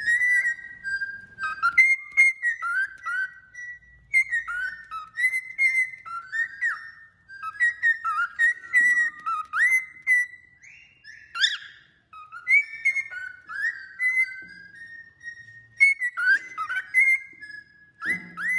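Male cockatiel singing: a long run of short, clear whistled notes that glide up and down, with small high chirps between them.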